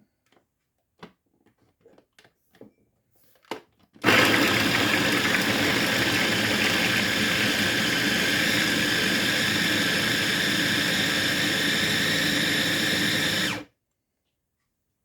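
A few light knocks and clicks, then an electric kitchen grinder switches on about four seconds in and runs steadily for about ten seconds before stopping abruptly, chopping the soaked chickpeas, onions, garlic and herbs into the falafel mixture.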